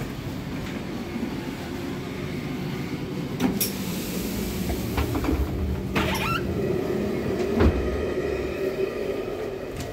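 Steady low rumble and hum inside a passenger rail coach, growing louder while passing through the gangway between two coaches. Several knocks and clatters from the sliding connecting doors break in, the loudest a thump about three quarters of the way through.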